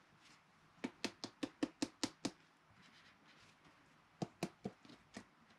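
Hands handling a rigid plastic card top loader on a tabletop: a quick run of about eight light taps and clicks in just over a second, then about five more around four seconds in.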